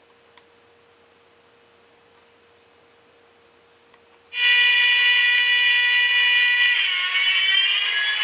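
Small 28 mm speaker in a ZIMO MX645 DCC sound decoder playing a GE AC4400CW diesel locomotive sound, which comes on suddenly about four seconds in as a loud, steady, high-pitched chord of several tones and holds, some of the tones creeping up in pitch near the end. Before it there is only a faint steady hum.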